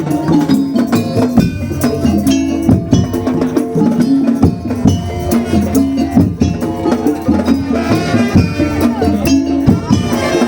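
Madurese daul ensemble playing: drums and clacking wood-block-like percussion hit in a fast, dense rhythm under a repeating pitched melody.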